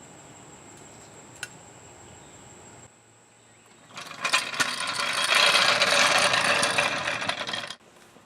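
A loud, rapid mechanical rattle that starts about four seconds in, builds quickly, and stops abruptly after nearly four seconds.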